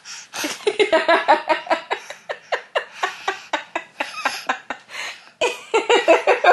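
Laughter in a long, quick run of short, high-pitched pulses, several a second, breaking off briefly about five seconds in and then starting again.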